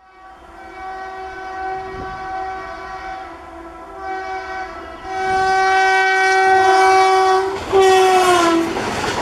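Indian Railways WAM-4 electric locomotive's horn, one steady pitch, sounding in long blasts that grow louder as it approaches. Near the end the pitch drops as the locomotive passes close by, and the rush of the passing train takes over.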